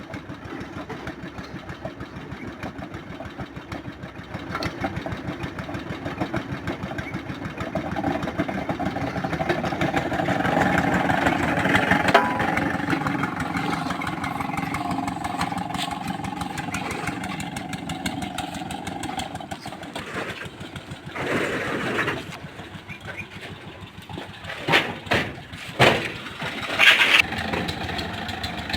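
Engine of a water-well boring machine running steadily, getting louder about ten seconds in. Several sharp knocks or clanks come in the last few seconds.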